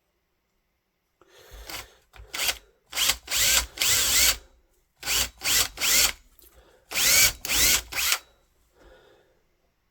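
Electric drill boring holes through masonite hardboard in a series of short bursts on and off the trigger, the whine rising and falling with each burst. It starts about a second in and stops near the end.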